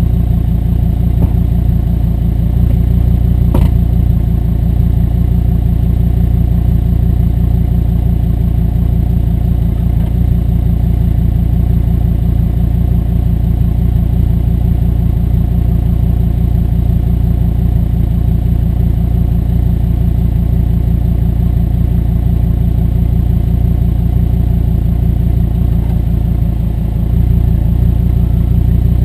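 Audi R8 V10 Spyder's 5.2-litre V10 engine running steadily through an Eisenmann stainless steel exhaust with flap control, getting a little louder near the end.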